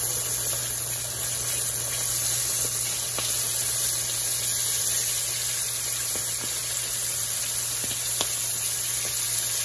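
Battered chicken drumsticks and wings deep-frying in hot vegetable oil just after going into the pan: a steady, vigorous sizzle with a few faint pops.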